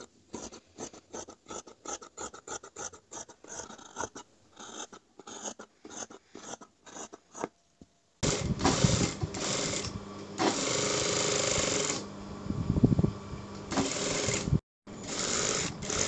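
Dressmaker's shears snipping through fabric in a quick run of cuts, about four a second. About eight seconds in this gives way to a louder electric sewing machine running in starts and stops, with one steady stretch of stitching.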